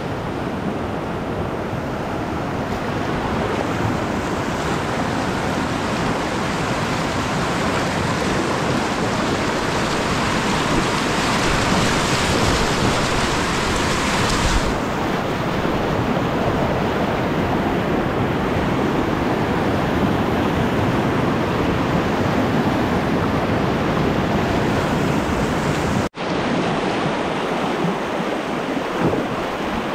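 Rushing whitewater of a river rapid heard from a kayak, a continuous loud roar of moving water. It is brightest and loudest partway through, changes abruptly about halfway, and drops out for an instant near the end.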